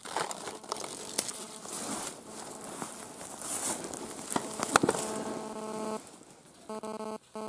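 A plastic trail-camera case and its strap handled: rustling, with clicks as the latches are worked and one sharp snap about five seconds in as the case opens. A buzzing hum starts about four and a half seconds in and comes and goes in short spurts near the end.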